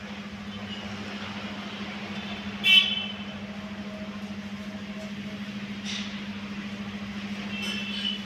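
Background noise of a busy market with a steady low hum, and a brief, sharp, loud sound just under three seconds in.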